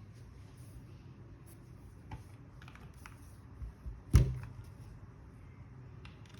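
A few separate clicks and one loud thump about four seconds in, over a low steady hum: scattered single presses or knocks on a QK65 mechanical keyboard rather than steady typing.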